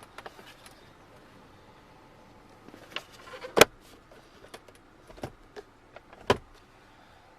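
A few sharp plastic clicks and knocks from a car's center-console parts being handled, the two loudest about three and a half and six seconds in.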